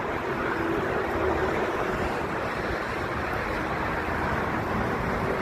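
Jet airliner engines running at taxi power some way off: a steady roar with a faint steady hum in it, mixed with wind buffeting the microphone.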